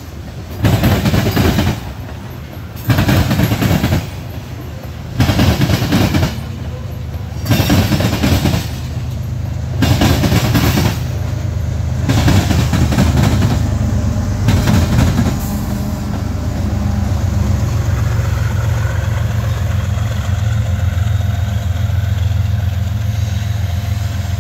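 Freight train of covered hopper cars rolling past, the wheels clattering in a regular beat about every two seconds. A Kansas City Southern diesel locomotive at the tail of the train then passes, and its engine keeps up a steady low drone as it moves away.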